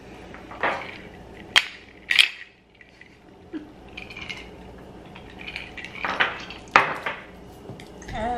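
Drinking glasses clinking and knocking in a toast: a handful of sharp clinks spread over several seconds.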